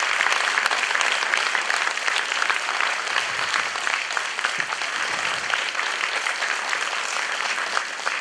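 Audience applauding in a hall, easing off a little near the end.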